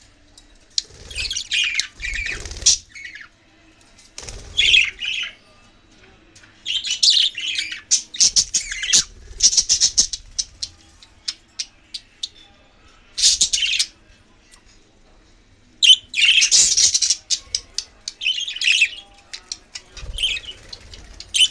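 Budgerigars chirping and chattering in irregular bursts, with some harsher squawks and short clicks between them.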